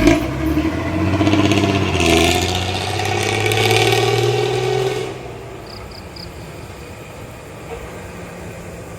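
Heavy vehicle's diesel engine accelerating as it passes, its pitch climbing for about five seconds. It then drops off suddenly to a quieter steady road background.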